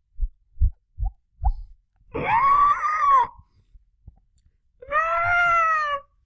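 A man imitating an animal with his voice: four short low grunts, then two long, high-pitched wailing cries, the second rising and falling.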